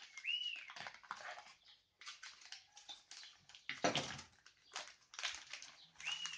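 Stiff plastic packaging of a military ration pack being cut open with a small knife and pulled apart by hand, with irregular crinkling and scraping. Twice, near the start and again near the end, a short high whine rises and falls.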